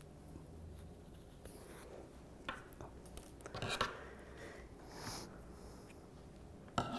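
Quiet, irregular rustling and light taps of hands handling fabric while hand-sewing a small fabric flower onto a plush teddy bear, with the thread drawn through the pile. The loudest rustle comes a little before four seconds in.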